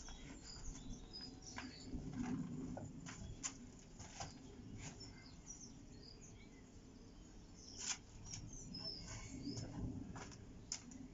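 Faint birdsong, scattered high chirps and small clicks, with one louder sharp snap about eight seconds in.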